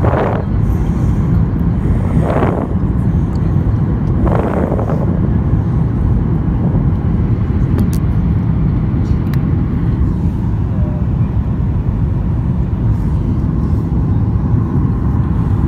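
Steady low roar of a Boeing 737-800 cabin on final approach: CFM56 engines and airflow over the lowered landing gear and extended flaps, heard from inside the cabin. Three short, brief sounds come about two seconds apart in the first few seconds.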